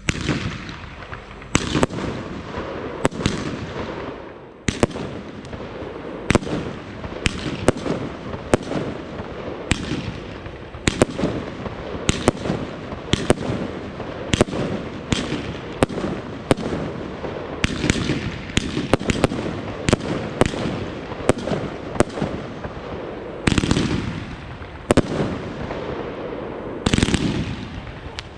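Weco Diwali compound firework, four linked 25 mm cake batteries, firing a rapid series of shots and aerial bursts, about one to two a second, over a continuous crackling haze. Two denser, louder volleys come near the end.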